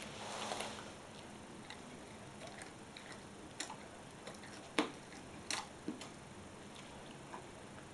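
Shar Pei dog gnawing a dry chew stick: scattered crunching clicks, the loudest a little under five seconds in. A brief rustle of the plastic snack bag at the start.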